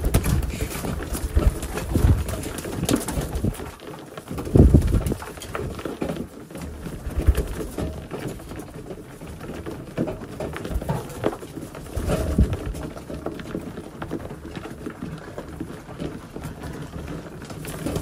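A flock of homing pigeons cooing, with bursts of wing-flapping as birds take off and land at the loft's landing board. The loudest burst comes about four and a half seconds in, with others near the start and about twelve seconds in.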